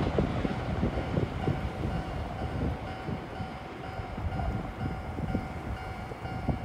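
Railway level-crossing alarm ringing in a steady repeating tone as an electric commuter train runs away over the track, its rumble fading under low, gusty noise.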